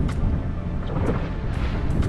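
Wind buffeting the microphone aboard a boat under way: a steady, rough low rumble.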